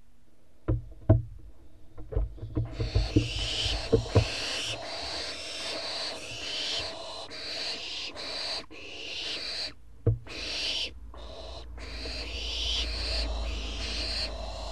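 Owlets in a nest box giving raspy, hissing begging calls over and over, with short pauses between them, after a few sharp knocks and scratches on the wood of the box in the first few seconds.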